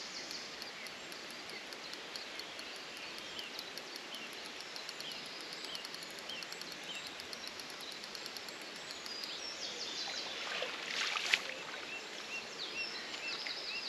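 Songbirds chirping over the steady rush of river water, with a fast run of faint high ticks through roughly the first nine seconds and a short sharp knock about eleven seconds in.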